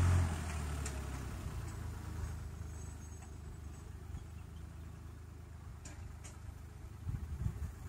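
Fiat 54C tractor's engine running at a distance: a steady low drone that drops abruptly just after the start, then slowly fades. A few low thumps come near the end.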